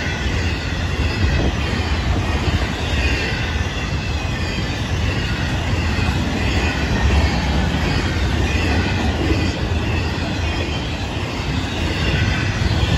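Florida East Coast Railway intermodal freight cars rolling past: a steady rumble of steel wheels on rail, with a faint high-pitched wheel squeal coming and going.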